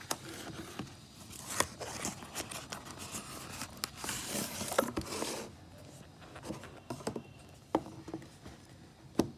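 Corrugated cardboard shipping box being opened by hand: scraping, rustling and tearing of cardboard with sharp clicks for about the first five seconds, then a few separate knocks and taps as the boxed phone is handled on the table, the loudest near the end.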